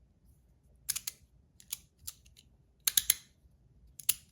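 Small metal fidget toy being handled, giving irregular clusters of sharp clicks and clacks, the loudest about three seconds in.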